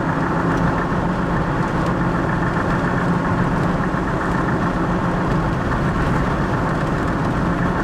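Steady engine and road noise from inside a moving car, with an even low hum.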